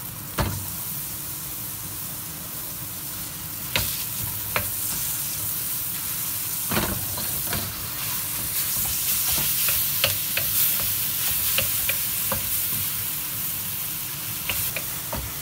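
Ground beef sizzling as it fries with garlic and onion in a stainless steel wok, a steady hiss. A wooden spatula stirs and breaks up the meat, knocking sharply against the pan a few times, the loudest knock about half a second in.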